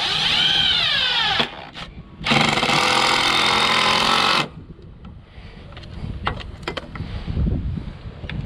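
Power drill running in two bursts. In the first, the motor pitch rises and then sags; the second, longer one is steady. A few light knocks and clicks follow.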